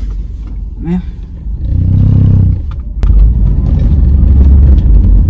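Car engine rising in pitch about two seconds in, then loud, steady low road rumble inside the cabin as the car pulls away. A short vocal sound comes about a second in.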